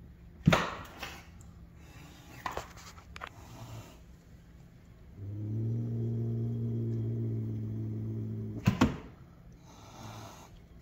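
Two Maine Coon cats in a standoff: a sharp knock about half a second in, then a steady low growl for about three seconds, broken off by a sharp double knock, and a short hiss about ten seconds in.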